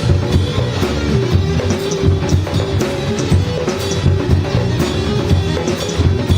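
Live band playing, with drum kit and percussion keeping a steady beat over low bass notes.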